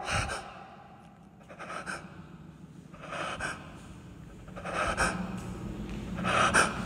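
A man breathing heavily, about five audible breaths spaced roughly a second and a half apart, with a faint low hum underneath in the second half.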